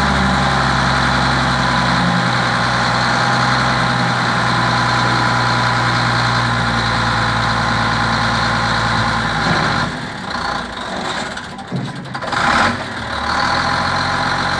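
Powerstar 2628 tipper truck's diesel engine idling steadily. About ten seconds in, the sound turns uneven and dips for a few seconds, then settles back to a steady idle.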